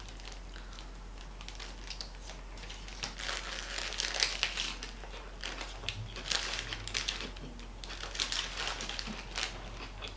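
Paper and plastic food packaging crinkling and crackling off and on as it is handled, with small irregular clicks.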